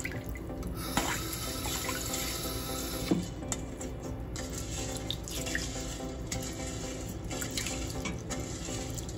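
Moong dal being rinsed in a stainless steel bowl in a steel sink: water sloshing with a few short splashes as a hand rubs the lentils, after the tap's stream stops right at the start.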